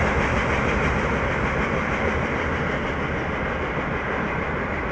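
Freight train of tank wagons rolling away along the rails: a steady rumble of wheels on track that slowly fades as the train recedes.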